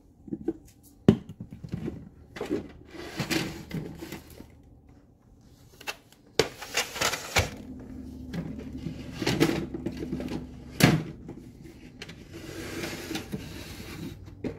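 Spice jars and containers knocking and rattling against each other and the shelf as they are handled in a kitchen cupboard, with two sharper knocks, one about a second in and one near eleven seconds.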